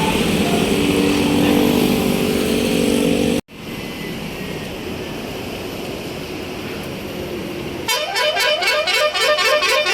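Road noise with a few held tones, cut off suddenly a few seconds in, then quieter traffic. Near the end a bus's telolet basuri multi-tone horn starts playing a fast, stuttering melody of quick repeated notes.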